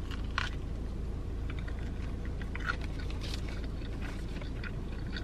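A bite into a cheeseburger about half a second in, then chewing: scattered soft crunches and wet smacks over a steady low hum inside a car cabin.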